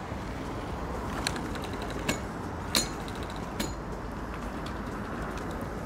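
Begode Master electric unicycle's soft stock shock absorber bottoming out with four sharp metallic clangs as the wheel drops down steps, over a steady rolling noise; the third clang is the loudest. The shock is fully compressing on each bump.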